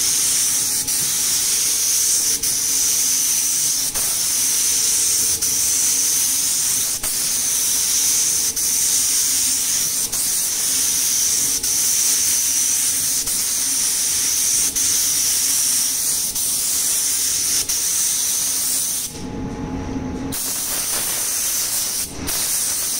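Gravity-feed spray gun hissing steadily as it sprays clear coat, with short regular breaks between passes. About 19 seconds in the spraying stops, leaving a lower steady rumble, and the hiss returns briefly near the end.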